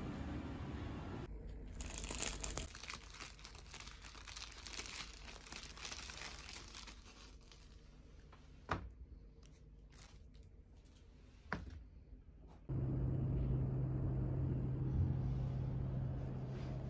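A clear plastic bag crinkling and rustling as hotel slippers are pulled out of it, with two sharp clicks later. Near the end a steady low hum takes over.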